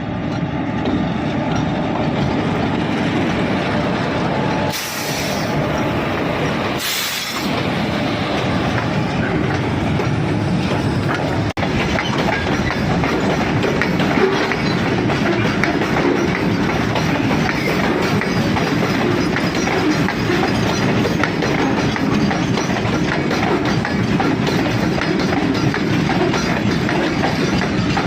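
Loaded coal wagons of a freight train rolling by, their wheels clattering steadily over the rails, with two short hisses about five and seven seconds in.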